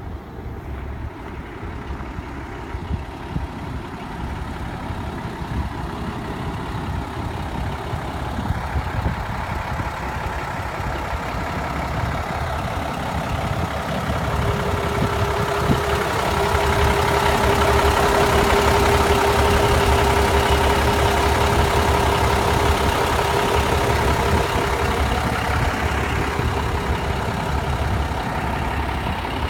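Cummins 855 turbo-diesel inline-six of a 1980 Crown school bus idling, heard with its side engine doors open. It grows louder about halfway through, with a steady whine on top, then eases off toward the end.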